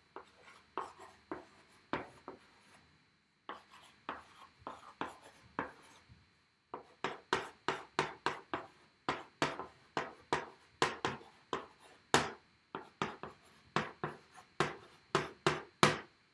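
White chalk writing on a blackboard: a quick series of chalk taps and short scratches, stroke by stroke, with a brief pause about three seconds in. The strokes grow louder and come closer together from about seven seconds in.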